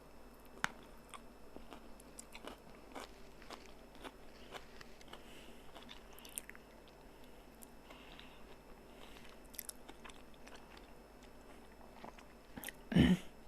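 A person chewing and biting noodles close to the microphone: soft, scattered mouth clicks and smacks. Near the end comes one louder thump.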